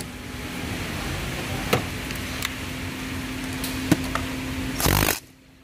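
A few sharp metallic clicks as the negative battery terminal clamp is fitted onto its post, then a cordless power tool runs in a short burst near the end, tightening the terminal nut.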